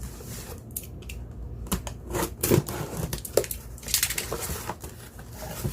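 A box and its packaging being opened by hand: irregular crackling, tearing and clicking of cardboard and plastic wrap.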